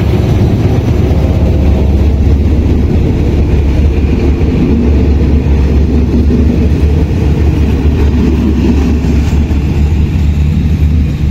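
Diesel locomotive engine running steadily as the train moves slowly past close by, with the coaches rolling on the rails behind it in a continuous low rumble.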